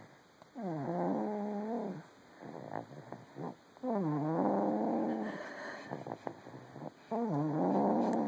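Snoring: three long, droning snores about three seconds apart, each dropping in pitch at its start and then holding steady.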